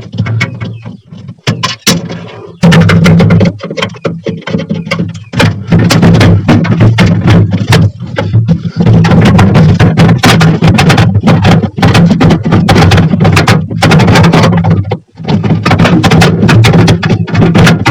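Background music with a steady drum and percussion beat, starting loud a few seconds in; before it, a few quieter clicks and knocks.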